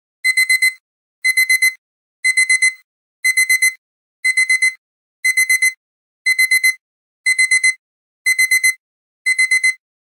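Electronic alarm-clock beeping: groups of four quick high beeps repeated about once a second, starting just after the start, signalling that the countdown timer has run out.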